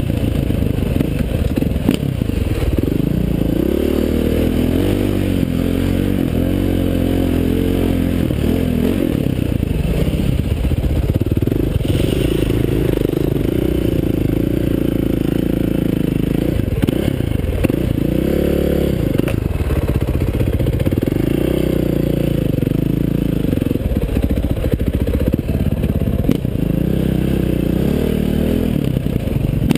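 KTM 530 XC-W's single-cylinder four-stroke dirt-bike engine running under constantly changing throttle, its pitch rising and falling as the bike is ridden over rough trail.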